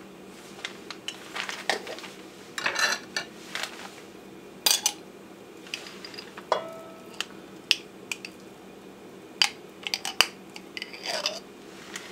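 Metal spoon clicking and scraping against a jar and a metal pot while solid coconut oil is scooped out and dropped into the pot: scattered clinks, one ringing briefly about six and a half seconds in, over a faint steady hum.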